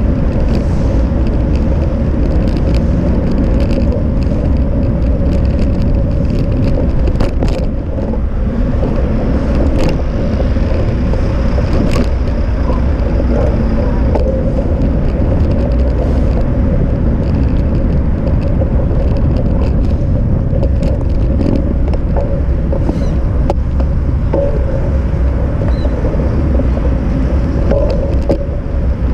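Steady wind buffeting and road rumble on a bicycle-mounted action camera while riding, with a constant hum and many small scattered clicks and rattles.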